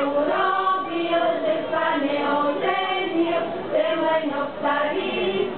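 A women's folk choir singing a Slovak folk song together in long, held notes.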